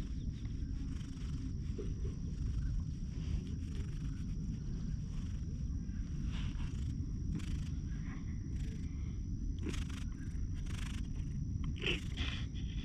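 Gray-and-white cat purring steadily close up while being stroked, with a few brief rustles near the end as its fur brushes the camera.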